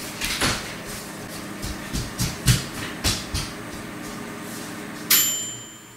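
A run of short knocks and clicks over a low steady hum. About five seconds in comes a sudden bright ring with a few clear high tones that fades within a second.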